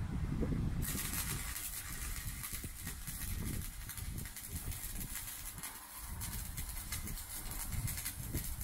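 Electric arc welding on 3 mm steel rectangular tubing: the arc strikes about a second in, then hisses and crackles steadily as the weld is laid.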